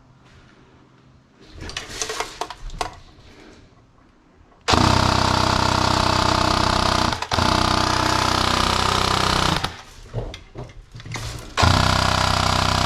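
Airsoft rifle firing full-auto: a rapid, even mechanical buzz in one long burst of about five seconds with a brief break partway through, then a second burst near the end, after a few quieter clicks.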